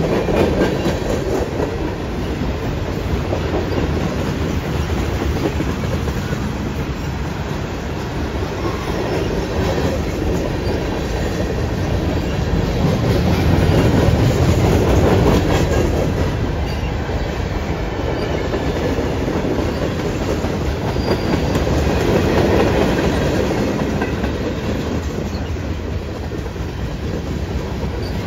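Freight train cars (tank cars, covered hoppers and a coil car) rolling past, with steel wheels rumbling and clacking on the rail. The rumble swells and eases as the cars go by, and is loudest about halfway through.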